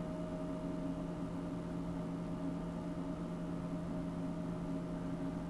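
Steady hum with a few constant tones held over an even hiss, unchanging throughout.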